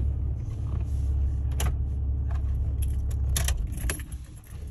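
2001 Jeep Cherokee XJ's engine running with a steady low drone while driving in four-wheel-drive low range. A few sharp rattles come over it, and the drone eases briefly near the end.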